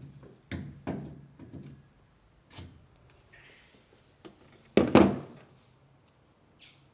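Pliers clicking and knocking against the washing machine's water inlet as the clogged inlet filter screen is worked out: a handful of sharp knocks, the loudest about five seconds in.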